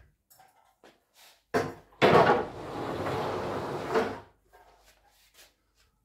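Set of wooden nesting tables being dragged and slid apart across a laminate floor: a knock about a second and a half in, then about two seconds of scraping that stops suddenly.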